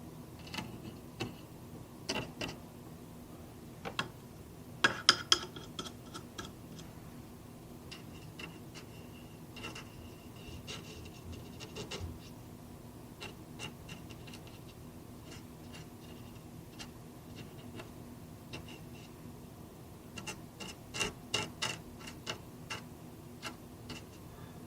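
A stiff, nearly dry paintbrush dabbing and scrubbing on primed synthetic paper, making irregular clicks and taps with a brief high squeak now and then. The taps come in a loud cluster about five seconds in and again near the end.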